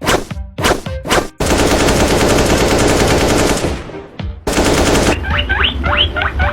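A few sharp knocks, then about two seconds of rapid machine-gun-like fire. After a short burst, a run of quick, high rising squeaks follows near the end.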